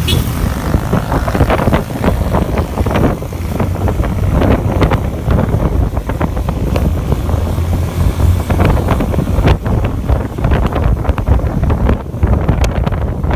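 Wind buffeting the microphone of a riding motorcycle, with the Yamaha FZi's engine running steadily underneath in a loud, rough rumble.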